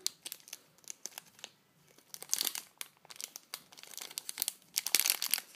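Clear plastic bag crinkling and crackling in the hands as the squishy toy inside it is turned and squeezed. The crinkling is uneven, with a short lull about a second and a half in and louder crackling near the end.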